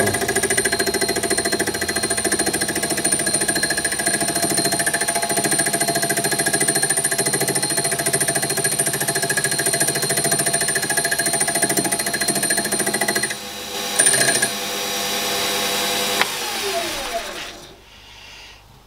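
Mini lathe taking an interrupted cut on a cast flywheel rim: the tool knocks rapidly against the high spots each turn because the rim is not yet a true circle, over a steady motor whine. About 13 seconds in the cut stops, and a few seconds later the lathe is switched off and spins down with falling pitch.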